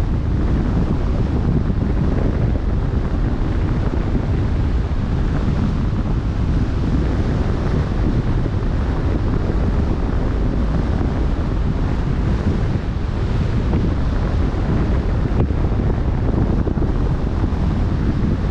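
Wind buffeting the microphone over the rushing wash of open-ocean waves, a steady dense noise heaviest in the low end.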